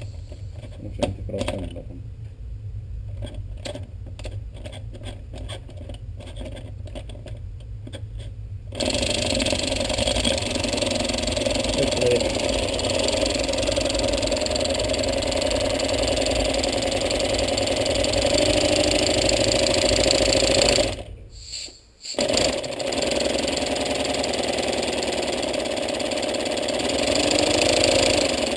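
LEGO pneumatic single-cylinder engine running on compressed air from a blow gun: a loud, steady hiss of air with rapid exhaust pulses. Before it there are a few clicks as the flywheel is turned by hand. The air starts suddenly about nine seconds in, cuts out for about a second later on, and comes back.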